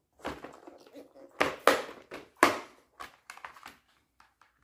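Handling noise: irregular rustling and small clicks of small parts and packaging being picked up and handled, loudest about one and a half to two and a half seconds in.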